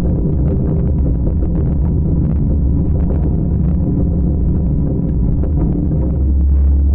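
Long-arm excavator's diesel engine running steadily, its low rumble growing a little heavier near the end.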